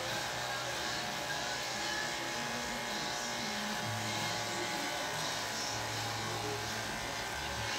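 Electric hair clippers buzzing steadily as they are run over a close-shaved scalp.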